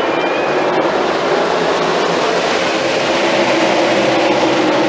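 A pack of NASCAR stock cars at racing speed, their V8 engines making a loud, steady drone.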